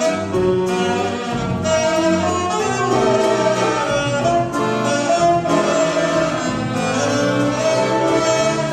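Tsymbaly orchestra, an ensemble of Belarusian hammered dulcimers, playing a melodic piece, its struck notes blending into sustained tones.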